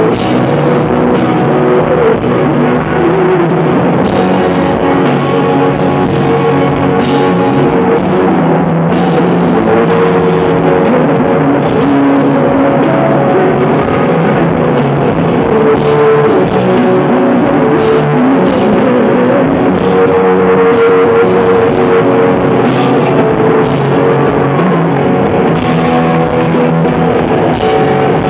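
Live rock band playing loud and continuously: amplified electric guitar from a Firebird-style guitar, with held notes that bend in pitch, over a drum kit.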